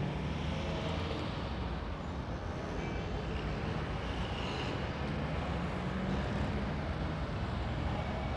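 Steady street-traffic ambience: an even wash of noise with a low rumble, running without a break.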